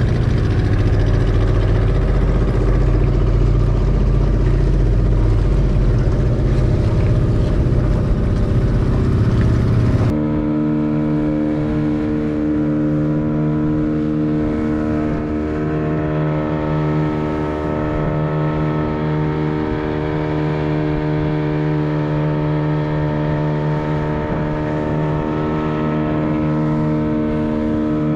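15 hp outboard motor on a fibreglass boat running steadily at cruising speed. For about the first ten seconds a heavy low rushing noise swamps it. Then there is an abrupt change, and the engine's steady, even drone is heard clearly.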